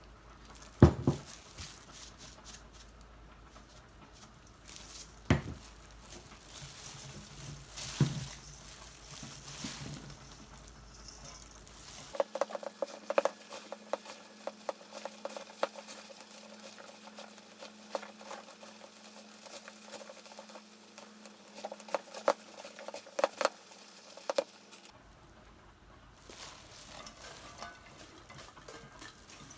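Kitchen cooking sounds. A few separate knocks come first, then about a dozen seconds of quick clicking and tapping of utensils in a pot or pan over a low steady hum.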